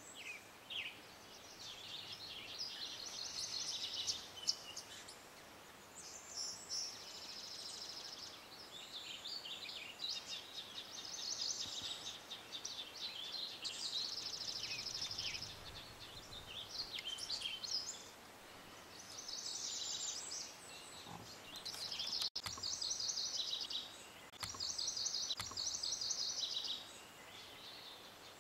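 Songbirds singing: high, rapidly trilled song phrases, each a second or two long, repeated every few seconds over a faint steady background hiss.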